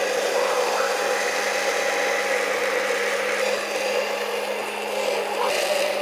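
Braun stick blender running steadily with a constant motor hum, whizzing through Caesar dressing in a tall jug while grapeseed oil is poured in to emulsify it.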